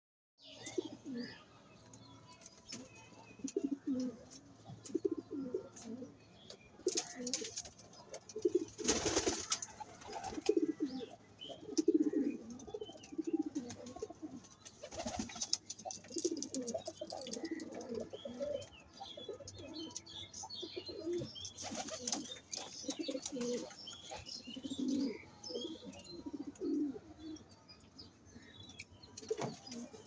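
Domestic pigeons cooing over and over, with a few brief flurries of wingbeats.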